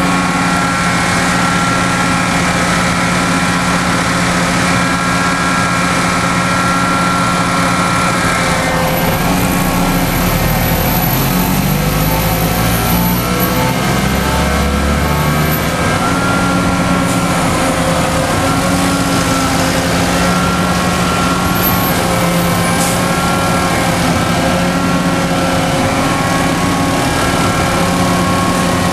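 Diesel engines of a convoy of seismic vibrator (thumper) trucks idling together in a steady drone, with another engine swelling and shifting in pitch for several seconds near the middle.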